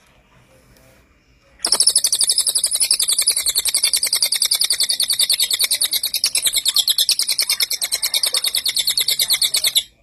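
Caged cililin songbird singing a loud, unbroken rapid-fire burst of high notes, about ten a second. It starts abruptly a second and a half in and stops suddenly just before the end.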